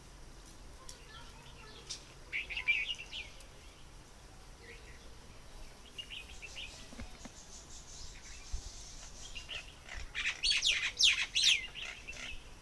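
Small birds chirping: a short burst of high chirps about two seconds in, scattered single chirps, then a louder run of rapid chirps near the end.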